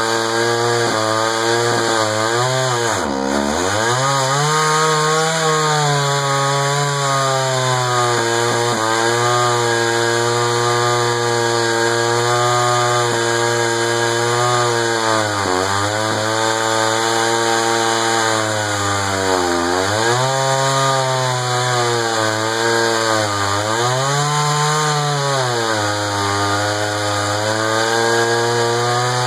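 Echo CS-500VL two-stroke chainsaw with a 20-inch bar running at high revs while cutting through a large slab of red oak. The engine pitch sags and recovers several times as the chain is loaded in the cut, most deeply about three seconds in.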